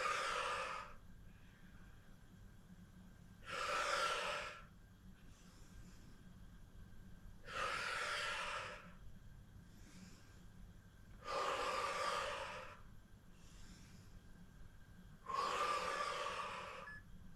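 A woman breathing hard through the mouth while holding an exercise: five strong breaths about four seconds apart, each lasting about a second, with fainter breaths between them.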